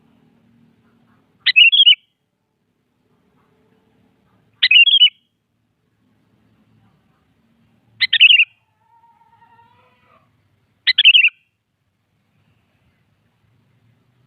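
Sooty-headed bulbul calling: four short call phrases, roughly one every three seconds, with near quiet between them.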